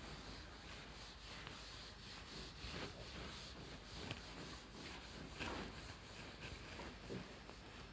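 A whiteboard being wiped clean by hand, faint rubbing swishes in several strokes.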